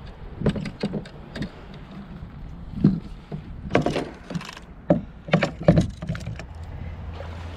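A run of irregular hard knocks and clunks as fishing rods and reels are handled and set into the plastic rod holders of a sit-on-top kayak.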